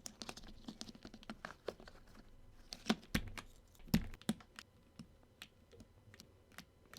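Irregular clicks and taps of a mechanical keyboard being worked on, with two louder knocks about three and four seconds in.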